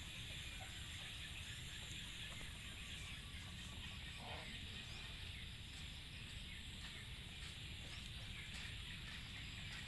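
Faint rural ambience: a steady high insect drone over an even hiss, with one short fowl call about four seconds in.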